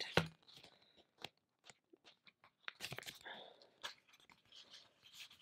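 Pages of a sticker book being flipped through by hand: faint paper rustling with scattered soft clicks, and longer rustles in the second half.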